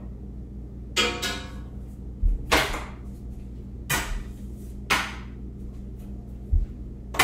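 Wire clothes hanger hung on a string, knocked against objects around the room: about five separate strikes a second or so apart, the first ringing on briefly with a metallic tone.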